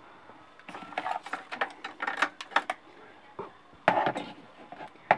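Plastic clicks and clatter of a digital multimeter and its leads being handled and set down on a hard tabletop: a run of small clicks, then a louder knock with rattling a little before 4 seconds in, and one more click near the end.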